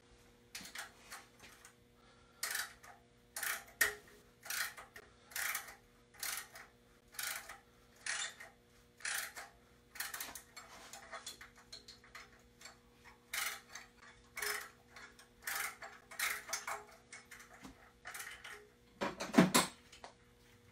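Ratchet wrench clicking in short strokes, about two a second, loosening bolts on a Ford 351 Cleveland's front accessory-drive brackets. A louder metal clunk comes near the end.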